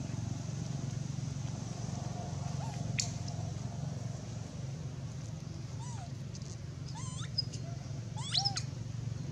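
Macaques giving short, high-pitched squeaks and rising calls, a few from about six seconds in, with the loudest cluster near the end, over a steady low background hum.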